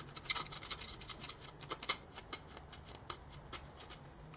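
A small metal pick scraping deposits off the chrome piston of a GPZ500's front brake caliper, in light, irregular scratches and clicks.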